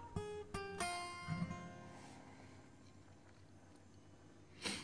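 Quiet background music on acoustic guitar: a few plucked notes in the first second that ring out and fade to a soft bed. A short burst of noise near the end.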